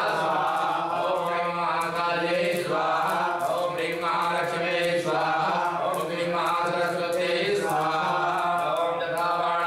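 Male priests chanting Sanskrit homa mantras in a continuous recitation, the phrases rising and falling with brief breaths every second or two.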